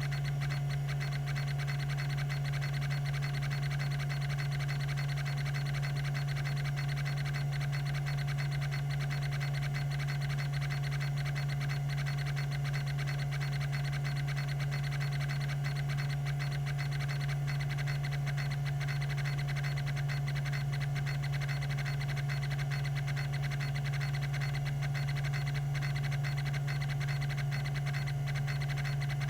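Tandon TM362 20 MB MFM hard drive spinning at 3600 RPM: a steady, unchanging hum with a fainter higher whine.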